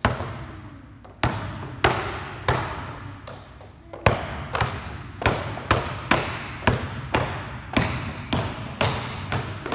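Basketball being dribbled on a hard indoor court floor, bouncing about twice a second and a little faster from about four seconds in; each bounce echoes in the large gym.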